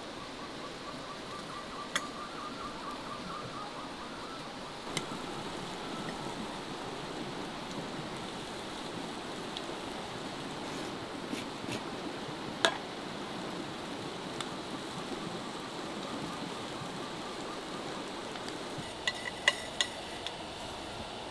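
A metal spoon clinking against a small stainless steel bowl while sauce is mixed, a few sharp clinks with the loudest about two-thirds of the way through and a quick run of them near the end, over a steady background hiss.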